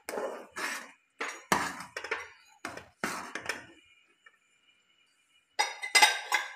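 Metal spoon scraping and knocking against the sides of a steel saucepan as soup is stirred: a run of short clattering strokes, a pause, then a louder clatter near the end.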